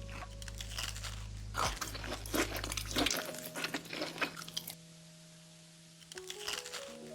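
Crunchy food being bitten and chewed close to the microphone, a quick run of crisp crunches that thins out about two-thirds of the way through and picks up again near the end.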